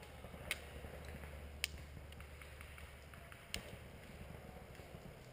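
Airsoft guns firing single shots: three faint, sharp snaps a second or two apart, with a few fainter ticks between them, over a low rumble that fades about three seconds in.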